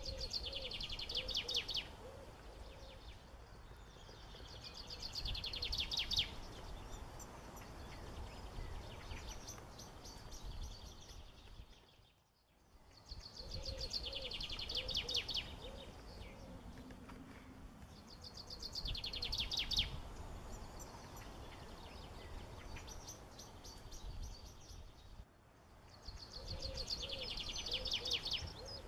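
Birds singing, mostly fast high trills with some softer lower notes, over a low rumble. The same run of songs comes round again about every thirteen seconds.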